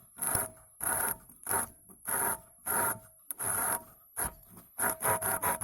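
A hand cutting tool is drawn back and forth across the glass envelope of an LED filament bulb, making rhythmic rasping strokes with a faint high squeal. There are about seven slow strokes, then quicker short strokes, about four a second, near the end. The cut has not yet gone through the glass.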